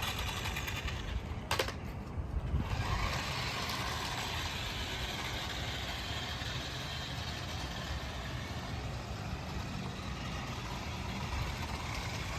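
Small electric motor and gears of a toy remote-control Jeep running steadily, following a sharp click about a second and a half in.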